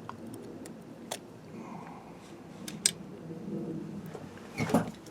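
A few light clicks and taps of parts on a pneumatic stapler being handled during reassembly, with a louder cluster of knocks near the end.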